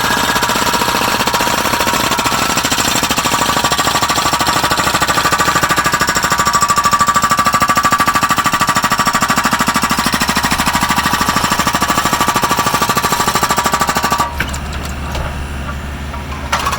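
Hydraulic rock breakers on mini excavators hammering rock with a fast, continuous pounding over the running diesel engines. About two and a half seconds before the end the hammering stops, leaving only the engine hum, then starts again.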